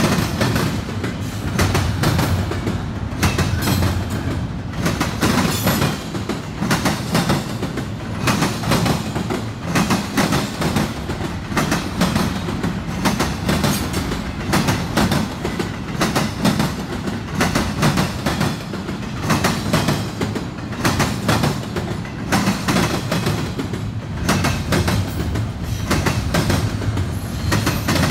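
Double-stack intermodal freight train rolling past, a steady rumble of well cars with frequent irregular clacks as the steel wheels bang across the crossing diamonds.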